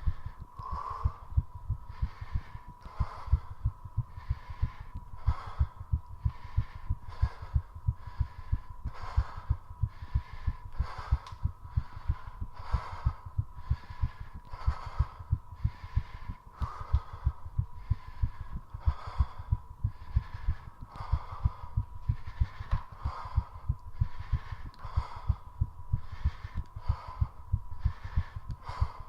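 Fast human heartbeat thumping steadily, raised by the exertion of squats, with heavy rhythmic breathing about once a second over it. A thin steady tone runs underneath.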